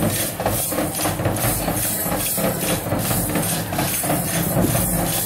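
Large double-headed barrel drum beaten with a stick in a steady, repeating rhythm, with split-bamboo clappers clattering along.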